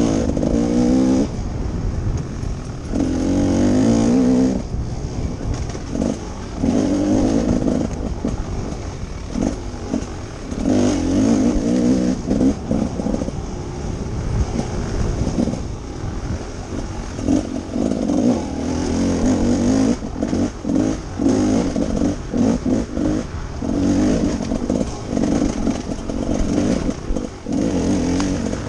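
Off-road dirt bike engine revving up and dropping off again and again as the throttle is worked through the trail, heard from the rider's helmet camera.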